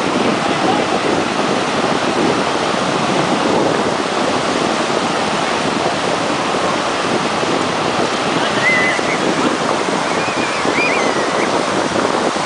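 Steady rush of sea surf, with wind buffeting the microphone.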